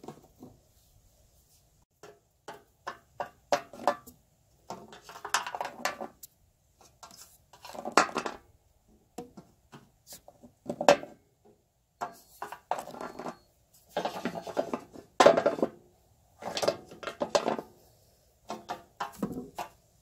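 Hard toy animal figures being handled, tapping and clattering against a hard surface and against each other in irregular clusters of clicks.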